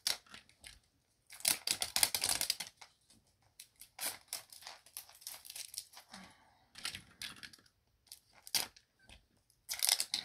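Plastic shrink wrap being torn and peeled off a Mini Brands capsule ball, crinkling and tearing in several short, irregular bursts with brief pauses between them.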